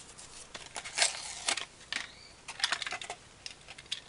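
Plastic blister packaging and card of a die-cast toy car being handled and pulled apart as the car is freed: an irregular string of sharp clicks and crackles.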